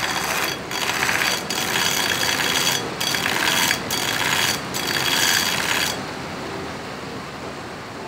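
Steel knife blade ground on a running belt grinder in short passes, with brief breaks as the blade comes off the belt about once a second; this grinds a distal taper, the blade thinning gradually toward the tip. About six seconds in the blade is lifted away and only the grinder keeps running, quieter.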